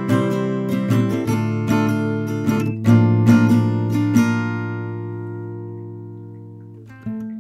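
Background music on acoustic guitar: strummed chords, then about halfway a single chord left to ring and fade, with strumming starting again near the end.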